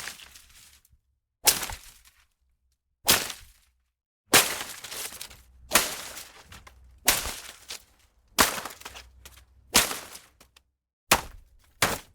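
Leafy plants and foliage being struck hard, again and again: about nine sharp swishing hits, one every second and a half or so, each trailing off in a short rustle of leaves.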